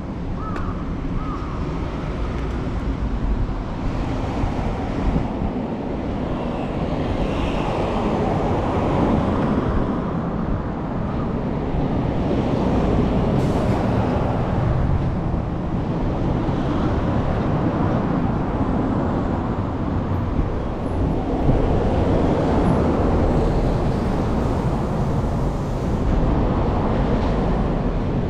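Steady noise of road traffic, swelling and easing as vehicles pass.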